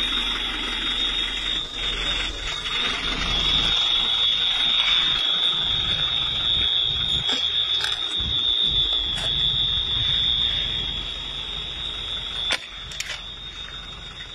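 High-pitched alarm sounding one continuous steady tone, over low background noise, with a single sharp knock near the end.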